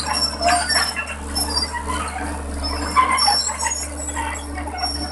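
Tata Hitachi EX110 hydraulic excavator running under test after a new hydraulic pump has been fitted: a steady low diesel engine drone, with intermittent high-pitched squeals and clanks from the machine as it moves on its steel tracks.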